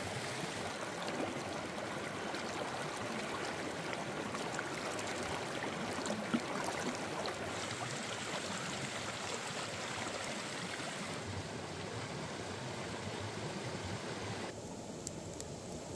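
Shallow stream running steadily over rocks, with water splashing as chillies and cucumbers are rinsed in a basket held in the current. About fourteen seconds in the water sound turns softer and duller.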